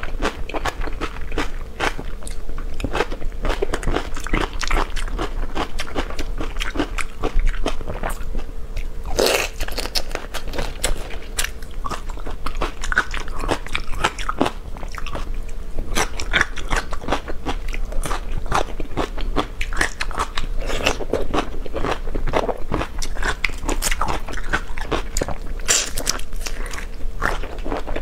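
Close-miked chewing and crunching of raw marinated shrimp with crisp onion and bell pepper, wet and irregular. One louder crunch comes about nine seconds in.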